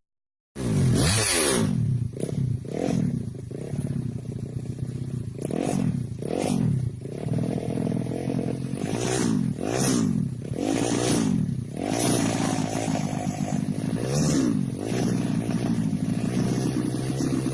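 Racing motorcycle engine being revved over and over, its pitch rising and falling with each blip, then settling to a steady idle near the end.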